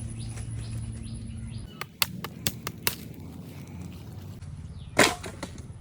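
A few sharp knocks, then one louder thump about five seconds in, over faint outdoor background.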